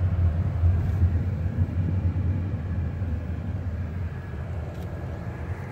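A car driving, heard from inside the cabin: a steady low rumble of engine and road noise that eases slightly near the end.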